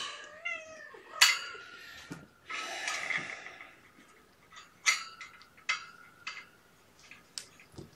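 Scattered light clicks, knocks and rustling, with a few sharp clicks between about five and seven and a half seconds in, as kittens clamber over a plastic digital kitten scale and a towel while it is handled. A short, high, wavering squeak comes about half a second in.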